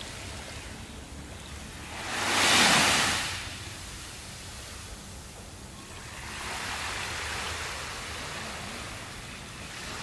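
Small waves breaking and washing up a sandy beach, in slow swells of surf noise: the loudest about two and a half seconds in, a softer, longer wash from about six to eight seconds.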